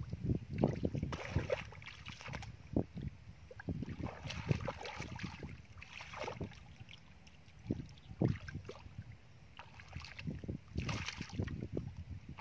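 Shallow muddy water sloshing and splashing irregularly as hands and bare feet grope through it and the mud beneath.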